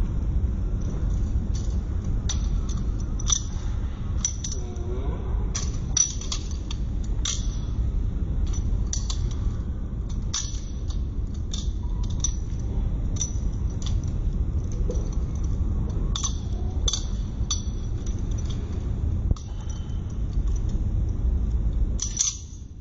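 Butterfly knife (balisong) being flipped: rapid, irregular metallic clicks and clinks as the handles swing round and strike each other and the tang pins, over a steady low rumble.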